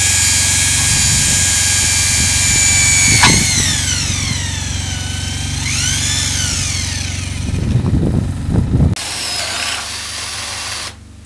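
Corded electric drill boring a hole through a flat steel bar: a loud, high motor whine whose pitch drops about three seconds in, sags and rises again, with rattling near the end of the drilling. After a cut, a quieter stretch of cordless drilling into wood follows.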